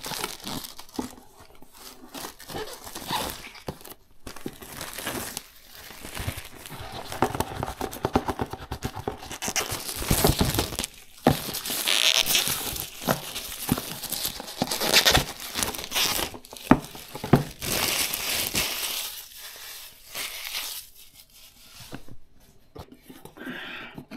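Clear plastic shrink-wrap crinkling and tearing as it is peeled off a cardboard product box, on and off, with the box being handled and shifted.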